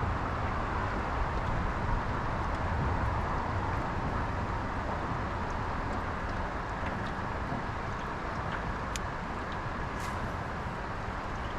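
Boat motor running steadily under way on the river, with water and wind noise, and a few sharp clicks near the end.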